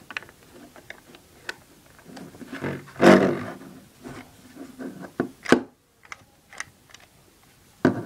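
Plastic Lego bricks clicking and knocking as a brick-built puzzle box is handled and turned over, with a louder, drawn-out sound about three seconds in and a sharp knock a little past halfway.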